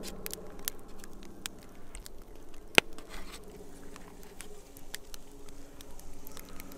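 A fork scraping and tapping in crinkling aluminium foil wrapped around a campfire-baked banana boat, with scattered small clicks and one sharper click about three seconds in.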